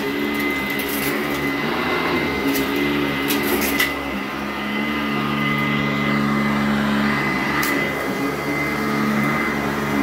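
Sanitaire SC899 direct-air commercial upright vacuum running over carpet with a steady high whine, its motor note shifting in pitch a few times as it is pushed along. A few short crackles of debris crunching through the fan come about two and a half seconds in, around three and a half seconds, and once more near the end.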